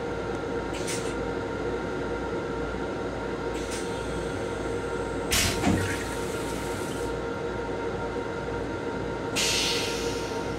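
M7 railcar's steady hum with a few steady tones. A short clunk comes about five and a half seconds in. Near the end a hiss starts as the stainless-steel toilet flushes and its bowl's bottom flap opens.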